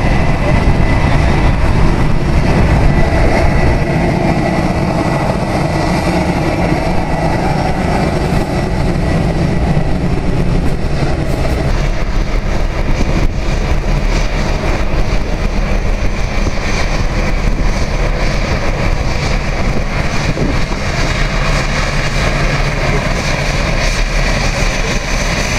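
Jet airliner engines as the plane comes in to land, loud and steady, with a thin high whine that fades out over the first nine seconds or so.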